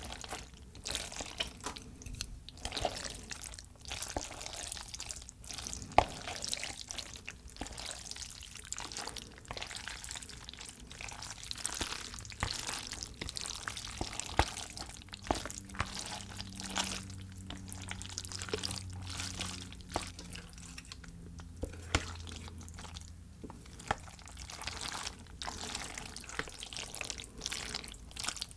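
Chopsticks, and near the end a spoon, stirring jajangmyeon noodles through thick black bean sauce in a large bowl. It makes a continuous wet, sticky squishing, with frequent short sharp clicks.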